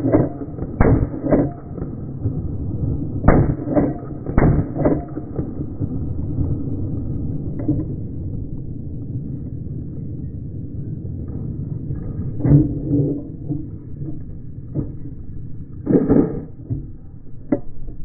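AR-15 rifle shots in slow motion, heard as deep drawn-out booms: six in three quick pairs about half a second apart in the first five seconds, then a few more spread out later, over a steady low rumble.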